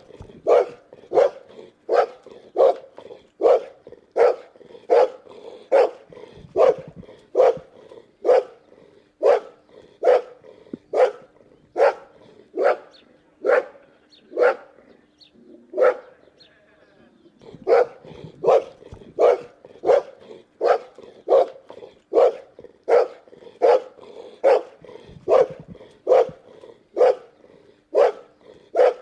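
Boxer dog barking over and over in a steady rhythm, about one and a half barks a second, with a short pause a little past halfway.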